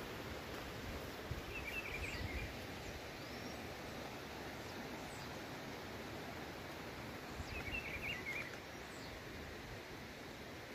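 Outdoor hillside ambience: steady wind hiss through the scrub with low rumbling on the microphone. A bird gives a short twittering call about two seconds in and again about eight seconds in.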